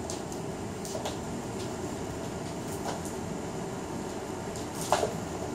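A cat's paws landing and scrabbling on a laminate floor as it pounces and spins: a few short taps, the loudest about five seconds in, over steady room hum.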